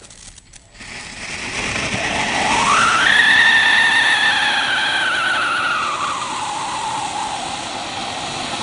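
Damo Fireworks 'Angry Birds Sounds' ground fountain cracker: the fuse sputters briefly, then the fountain sprays sparks with a loud hiss. About two seconds in, a siren-like whistle rises sharply, holds, then slowly falls in pitch.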